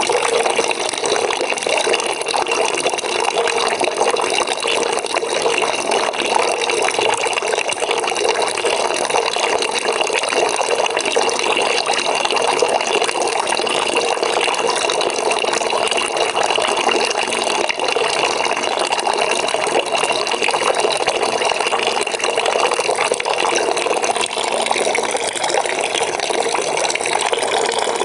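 Water pouring steadily into a bucket as it fills, a continuous even splashing rush.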